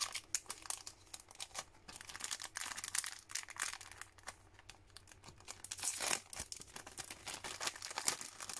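Clear plastic packaging sleeve crinkling as thin metal cutting dies are handled and pulled out of it: irregular rustling with a louder burst about six seconds in.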